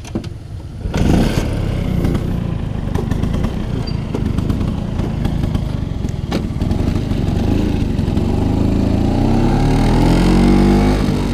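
1960 Vespa VBA scooter's two-stroke engine running low, then pulling away about a second in. Near the end it climbs steadily in pitch as the scooter gathers speed.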